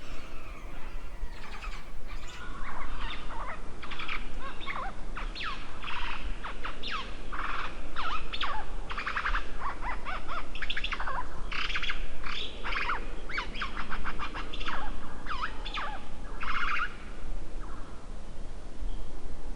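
Birds chirping: a busy run of short, quick calls and chatter starting about two seconds in and breaking off about three seconds before the end, over a steady low rumble.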